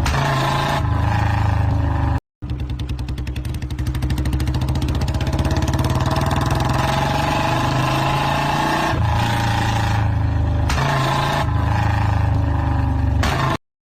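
Royal Enfield motorcycle engine running in a series of clips: a short break a couple of seconds in, then a stretch of distinct, evenly spaced exhaust beats that grows louder about four seconds in, and a smoother steady running sound from about nine seconds in until it cuts off just before the end.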